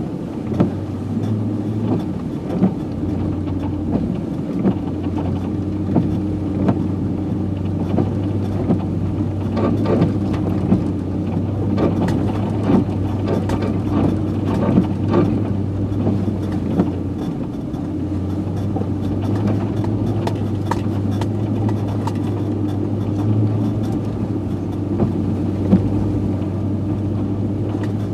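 Nissan Titan pickup truck's engine running steadily while driving off-road in snow, its pitch dipping briefly about two-thirds of the way through. Frequent short knocks and clunks sound over it.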